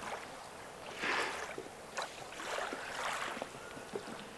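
Small waves lapping and sloshing against a boat's hull, swelling and easing twice, with light wind and a few faint knocks.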